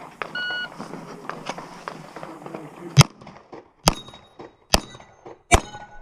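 A shot timer's short start beep, then four pistol shots a little under a second apart. The later shots are followed by a brief metallic ring.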